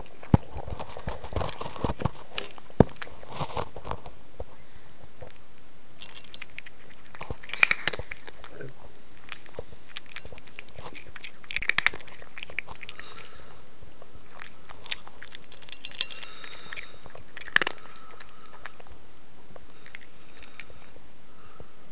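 A cat eating, with irregular crunching and chewing sounds.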